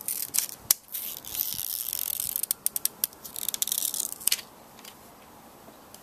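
Safety razor blade scraping cured windscreen-repair resin and its curing film off the glass: a run of short, high-pitched scraping strokes with sharp clicks, stopping after about four seconds.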